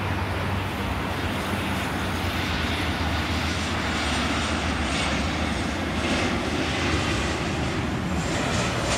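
Boeing 737-800's twin CFM56-7B turbofan engines running at approach power as the airliner passes low on final approach with gear down: a steady, continuous jet noise with a faint thin high whine partway through.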